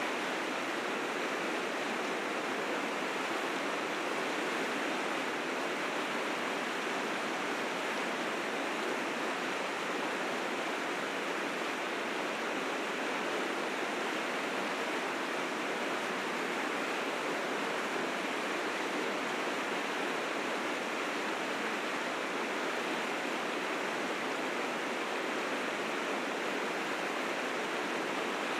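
River rapids rushing steadily, the current swollen and fierce with spring snowmelt.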